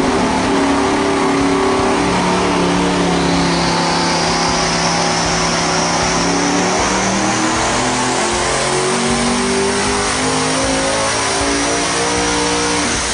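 Devel Sixteen's quad-turbo V16 running a full-power pull on an engine dyno, pulling to about 4,500 hp. A high whine rises steadily in pitch over the engine note as it revs.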